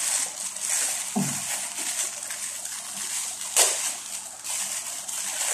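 Thin plastic sheets crinkling and crackling as burger patties are peeled off them by hand, with one sharper crackle about three and a half seconds in, over a steady hiss.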